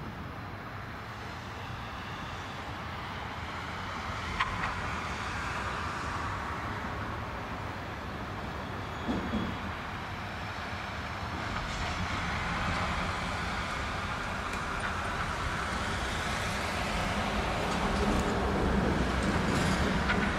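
Steady rumble of distant rail and road traffic, growing slowly louder, with a brief high tone about four seconds in and a short sliding sound about nine seconds in.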